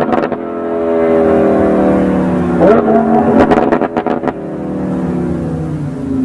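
Lamborghini Huracán's V10 engine through an ARMYTRIX aftermarket exhaust, blipped once about three seconds in and falling back with a burst of crackles and pops on the overrun before settling toward idle.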